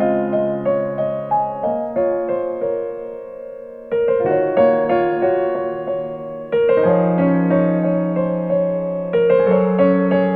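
Piano music played back through a KT88 valve amplifier with a MUSES8920 op-amp input stage and SEAS Bifrost loudspeakers, recorded from the speakers. Soft chords and single notes are struck about once or twice a second, each ringing and fading, with louder new chords about four and seven seconds in.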